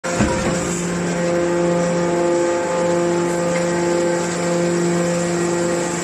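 Hydraulic metal baler's power unit running, its motor and hydraulic pump giving a steady hum. A short knock sounds just after the start.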